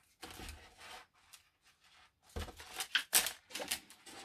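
Handling noise: rustling and light clicks as small wired LEDs and their plastic connectors are sorted by hand, with a busier run of clicks a little past halfway.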